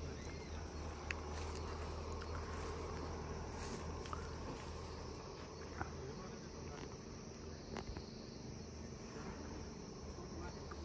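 Outdoor ambience of insects buzzing and chirping over a steady low rumble, with a few light clicks.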